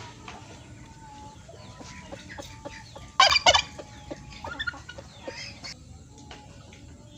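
Chickens clucking, with one loud short series of calls about three seconds in.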